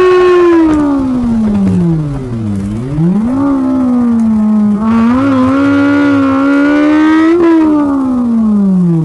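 Honda S2000's inline-four engine through its F1 exhaust, heard from the cabin while driving: a high, siren-like note that falls as the revs drop, rises sharply again about three seconds in, holds and climbs slightly, then falls away again near the end.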